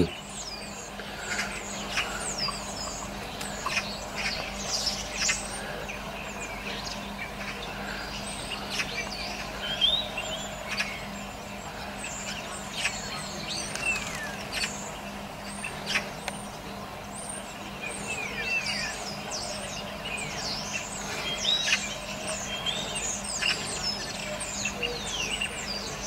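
A flock of starlings chattering: many short overlapping whistles, clicks and rising and falling chirps, over a faint steady low hum.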